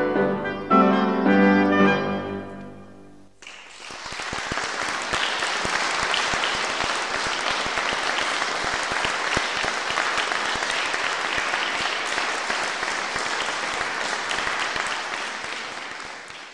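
Oboe and piano play the closing notes of a piece, dying away over about three seconds. Then audience applause breaks out and runs steadily, tailing off near the end.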